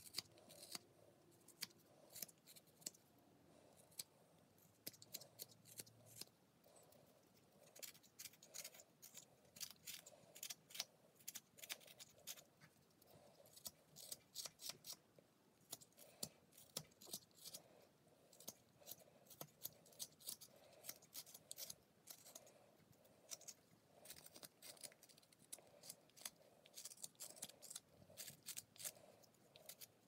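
Whittling knife slicing thin shavings from a small carved wooden figure: irregular runs of short, crisp snicks, one per cut.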